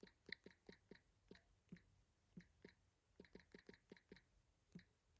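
Soft taps of typing on a phone's touchscreen keyboard: an irregular run of quick clicks, very faint, with a short break a little under two seconds in.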